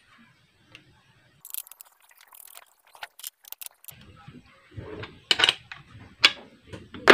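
Small metal parts clicking and tapping as a fish shocker's contact-point (platino) assembly is screwed back onto its wooden base by hand. A run of quick light clicks comes about a second and a half in, then scattered knocks and handling noises.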